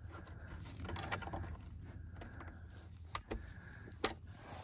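Soft clicks and scraping of plastic bulb holders being twisted and pushed into the back of an instrument cluster's circuit board, with a few sharper clicks in the second half, over a steady low hum.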